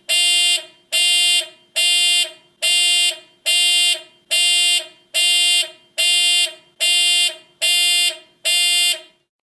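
Hospital room alarm beeping: a steady electronic tone repeated about every 0.85 seconds, each beep about half a second long and equally loud. The beeping stops about nine seconds in.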